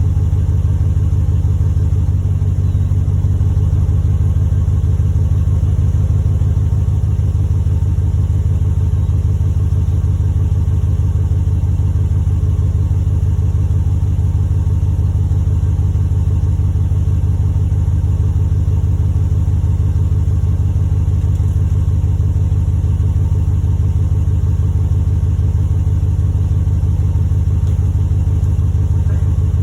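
2021 Ram 1500 pickup's engine idling steadily, a loud, even low rumble that starts suddenly.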